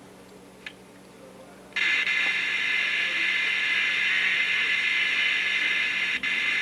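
A mid-1960s GE AM/FM transistor radio's speaker suddenly comes alive about two seconds in with loud, steady static hiss, a sign that the speaker now plays after the bad connection was bridged with a wire. A faint click comes just before.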